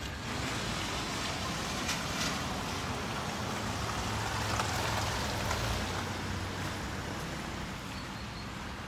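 Steady rushing outdoor background noise with a low hum underneath, swelling a little about four to five seconds in and easing off near the end.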